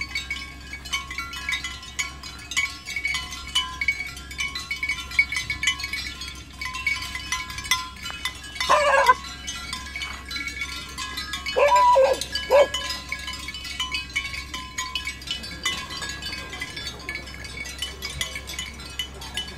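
Background music with a chiming melody of short high tones. A dog barks once about nine seconds in and twice more around twelve seconds.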